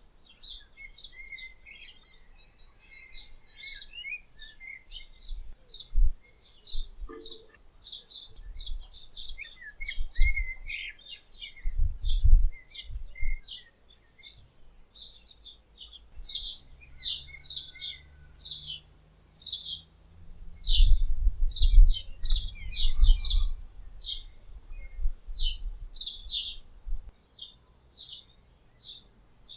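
Many small songbirds chirping busily in trees, a steady stream of quick, high chirps and short trills. Low rumbles come through several times, loudest about twelve seconds in and again around twenty-one to twenty-three seconds in.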